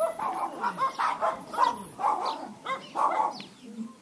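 A dog barking over and over in a steady run, about two or three barks a second.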